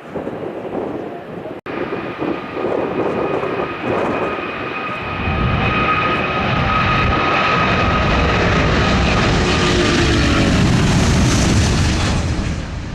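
Airbus A380 jetliner's four engines passing close by, with a steady engine whine over a deep rumble that comes in about five seconds in. The sound grows loudest near the end and then begins to fade as the plane moves away.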